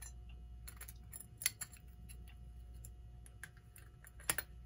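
Scattered light clicks and taps of a clock's glass crystal and brass ring being handled and set over the face, with louder clicks about a second and a half in and again near the end.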